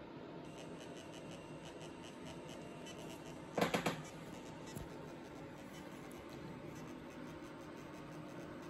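Three quick knocks with a rustle about three and a half seconds in, as the camera is moved, followed by a single small click; under them a faint steady hum and faint rapid ticking.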